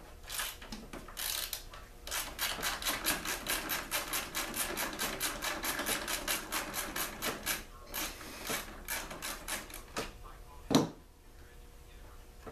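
Rapid, even clicking from a hand tool working a fastener on a small two-stroke generator during disassembly, about five clicks a second for several seconds, then slower clicks and a single loud knock near the end as something is set down on the wooden bench.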